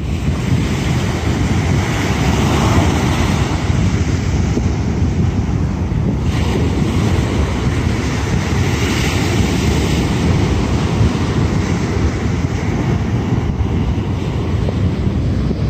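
Small ocean waves breaking and washing up a sandy beach, the hiss of the wash swelling and fading several times, under a steady low rumble of wind buffeting the microphone.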